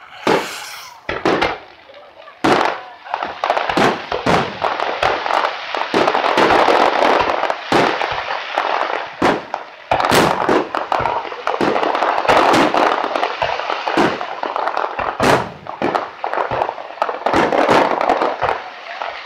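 Aerial fireworks bursting: a rapid, irregular string of sharp bangs, several a second at times. Between the bangs, a continuous dense noise fills the gaps from about three seconds in.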